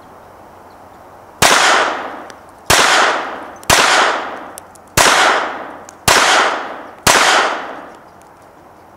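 Six pistol shots from a Baby Browning .25 ACP pocket pistol, fired roughly a second apart, each a sharp crack followed by a long echoing tail.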